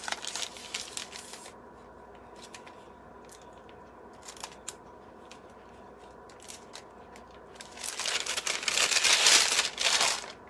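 Clear plastic piping bag crinkling and rustling as it is handled, with a few small clicks between; the loudest crinkling comes near the end.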